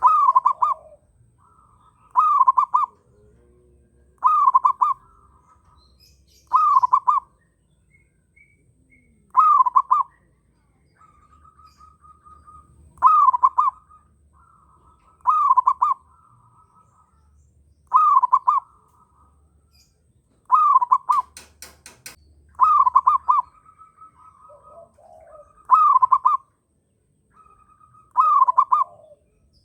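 Zebra dove (perkutut) in strong breeding condition cooing over and over: about a dozen short, loud cooing phrases, two to three seconds apart. Softer trilling at a similar pitch fills the gaps between them, and a quick run of sharp clicks comes about two-thirds of the way through.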